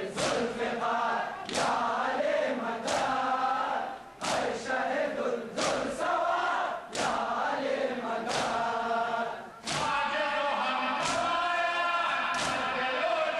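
A crowd of men chanting a nauha lament in unison. Their chests are struck together with open hands in a collective matam beat that lands about every 1.3 seconds.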